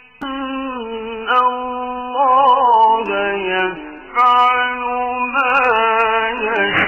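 Background music of long held notes that sound like a voice, moving to a new pitch about every second and wavering with vibrato twice.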